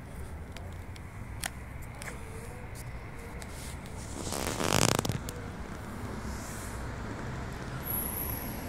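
Handheld phone microphone picking up handling clicks and rubbing over a steady low outdoor rumble, with one brief, loud rustling noise about halfway through.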